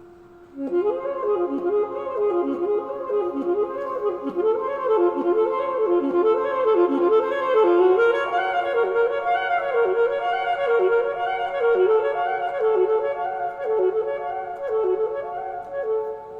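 Music: a solo wind-instrument melody of quick, dipping notes, starting about half a second in.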